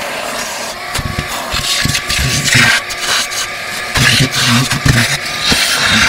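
Wet/dry shop vacuum running, its hose sucking standing water out of an air-conditioner's condensate drain pan, with uneven surges as water and air are drawn in and the hose knocks against the pan.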